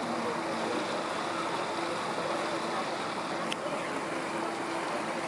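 Steady rush of river water along a moving boat, with a low engine hum beneath it; a short high chirp falling in pitch about three and a half seconds in.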